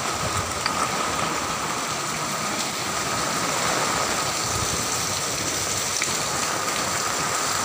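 Heavy typhoon rain pouring down steadily, a constant hiss of downpour.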